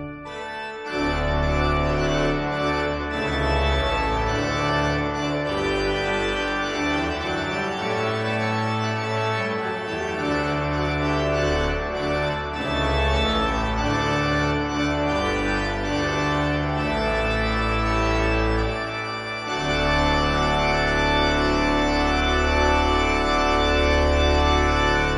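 Background organ music: slow, sustained chords over deep held bass notes that change every second or two.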